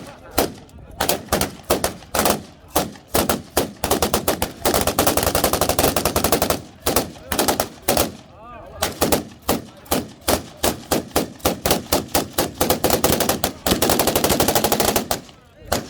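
Gunfire from automatic rifles: irregular single shots a few per second, broken by two long rapid-fire bursts of about two seconds each, one near the middle and one near the end. It is typical of celebratory shooting into the air.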